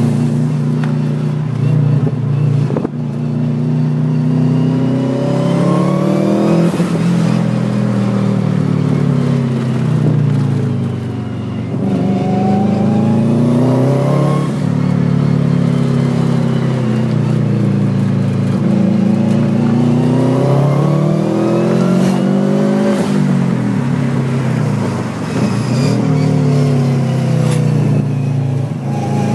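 Turbocharged flat-four engine of a Subaru WRX fitted with a dog-box gearbox, heard from inside the cabin, revving hard and repeatedly: its pitch climbs, then drops sharply at each gear change or lift, several times over.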